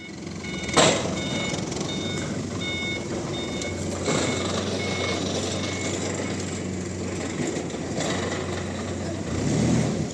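A reversing alarm beeping about twice a second, fading out after a few seconds, over the steady low hum of machinery running. A sharp knock just under a second in.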